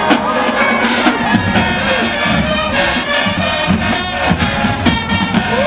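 Marching band playing: massed brass over drums.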